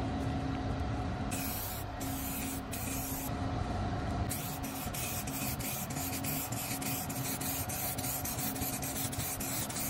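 Clear coat being sprayed onto a headlight lens: short, rapidly repeated bursts of spray hiss, about four a second in the second half, over a steady low hum.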